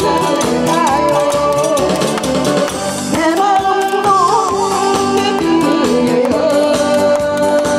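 A woman singing into a microphone over a backing track through PA speakers, her voice wavering with vibrato on held notes, with a steady beat underneath.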